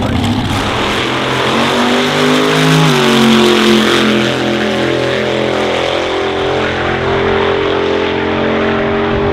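Slingshot dragster's supercharged V8 at full throttle on a drag-strip run: the engine note climbs steeply for about three seconds, then holds a steady high pitch as the car runs away down the track.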